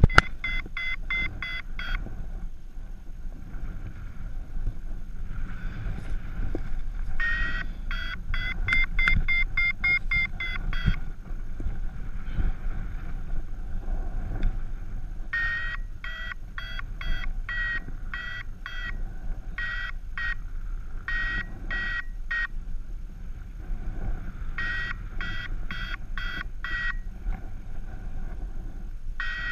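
Paragliding variometer beeping in quick runs of short, high beeps, about three to four a second, coming in spells of a few seconds with pauses between: the climb tone that signals the glider is rising in lift. Under it is a steady rush of wind noise on the microphone.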